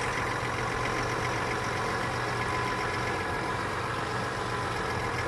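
Chevrolet Silverado's 3.0-litre Duramax LM2 inline-six diesel idling steadily in gear, with its engine cooling fans running at full speed. The fans are at full speed because the EGR cooler sensor is not reading, a fault in its wiring harness.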